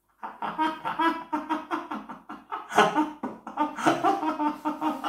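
People laughing heartily in a long run of quick, repeated bursts.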